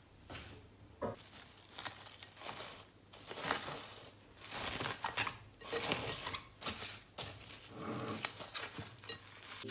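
Plastic cling film being stretched over a bowl and pressed down around its rim: a run of irregular crinkling rustles.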